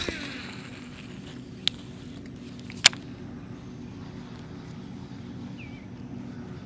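Lew's Speed Spool baitcasting reel: a falling whine as the spool slows at the end of a cast, then a steady whirring hum as the handle is cranked in a slow, steady retrieve. Two sharp clicks come through, one under two seconds in and a louder one about three seconds in.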